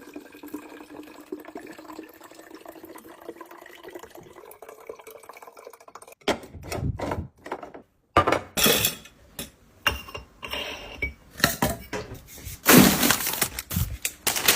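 Faint steady sound with a tone that slowly rises in pitch for the first six seconds, then a run of clinks and knocks of glass and hard containers being handled and set down, louder toward the end.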